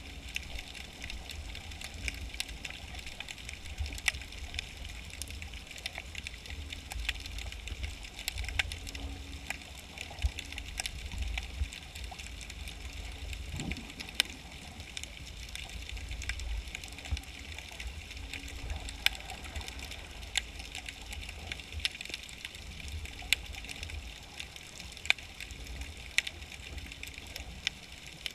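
Underwater ambience picked up by a camera in a waterproof housing: a steady low rumble and hiss with scattered sharp clicks and a faint, broken hum. About halfway through, a brief falling sweep.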